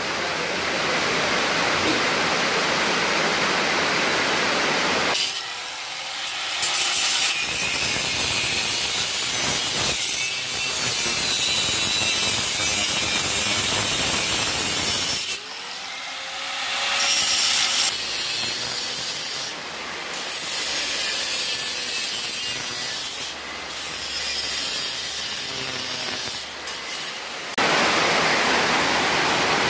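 Angle grinder cutting a steel exhaust pipe, a steady grinding hiss in several stretches that start and stop abruptly. Near the end, the steady hiss of heavy rain.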